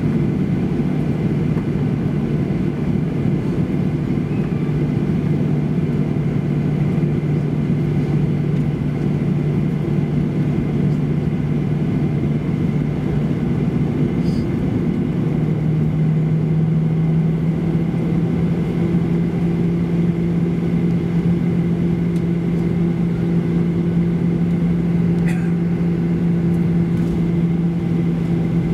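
Jet airliner cabin noise while taxiing: the engines' steady low hum over a rushing background, stepping up slightly in pitch about halfway through.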